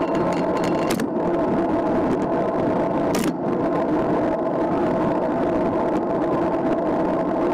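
Steady rush of wind and tyre noise from riding a road bike at speed on asphalt, picked up by a bike-mounted camera's microphone, with two brief knocks about one and three seconds in.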